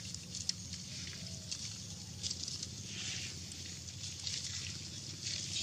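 Young macaques feeding from plastic milk pouches: irregular crinkling and rustling of the packets with wet smacking and sucking, and a few faint short calls.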